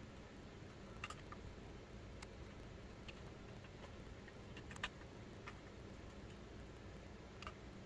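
A small hand screwdriver turning screws into a GPU water block: a handful of light, irregular metallic clicks and ticks, the sharpest about five seconds in, over a low steady background hum.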